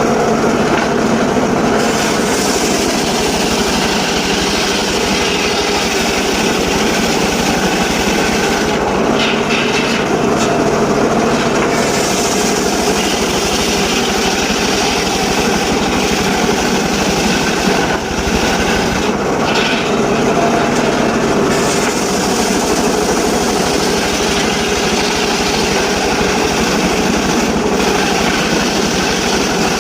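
Mobile circular sawmill running and sawing teak logs: a loud, steady mechanical din, its high hiss easing briefly about nine and again about nineteen seconds in.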